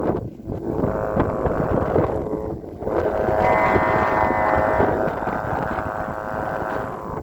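Thai kite hummer (snu) droning loudly in strong gusting wind, with wind buffeting the microphone. From about three seconds in the hum settles into a steadier, higher note with several overtones, then eases off slightly near the end.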